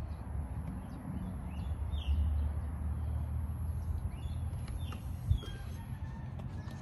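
Outdoor ambience of wind rumbling on the microphone and walking footsteps, with short bird chirps scattered through the middle and a single thump about five seconds in.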